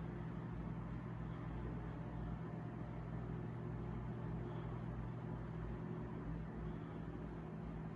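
Hunter Zephair D12 12-inch table fan running steadily on low speed, a steady motor hum with the rush of air. The motor is not fully warmed up, so low speed runs a little slow.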